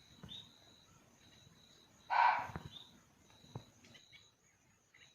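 Indian muntjac (barking deer) giving one short, loud bark about two seconds in, calling to a second barking deer. Insects chirp faintly and steadily throughout.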